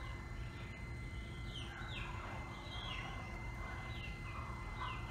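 ChickenGuard automatic coop door opener's motor running steadily, winding up the string to raise the pop door during door calibration, heard as a faint steady whine. Birds chirp over it repeatedly with short falling calls.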